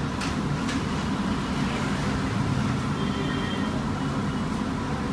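Steady low rumble, with a couple of short light clicks in the first second.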